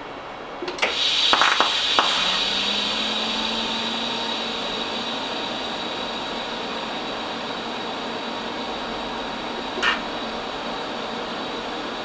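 TIG welding arc striking about a second in with a sharp crackle, then a steady hiss as the weld runs along the stainless steel ring. A short crackle comes near the end.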